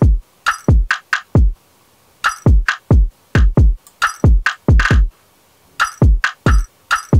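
Programmed drum loop: deep kicks with a falling pitch and sharp snare hits, with two brief pauses in the pattern. It plays through the Kit Plugins Core Compressor on the drum bus, set with a delayed attack to let the transients through and extra body.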